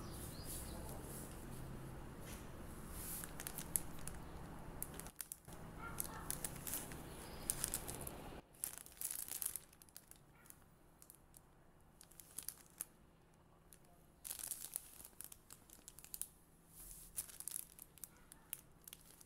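Clear plastic packaging bag crinkling as it is handled, in irregular crackles with quieter gaps between.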